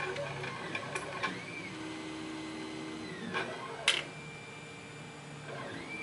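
Small metal clicks and taps from a pin-tumbler lock cylinder and steel tweezers being handled, with one sharper click about four seconds in, over a faint steady hum.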